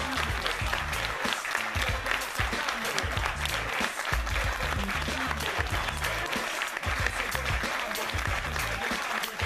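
A crowd applauding without a break, hand-clapping in a dense patter, over background music with a bass line.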